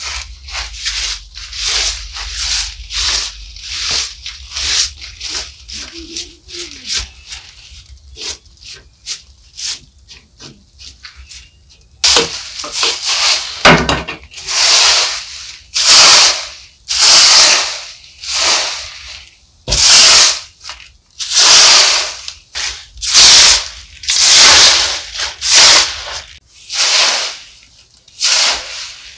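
Repeated scraping strokes. In the first half they are short and quick; from about halfway through they become louder and longer, about one every second and a half.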